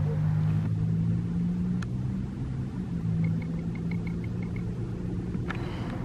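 Federal Signal Thunderbolt 1003 siren winding down after its alert, its rotor and blower coasting to a stop: a low drone that fades out near the end.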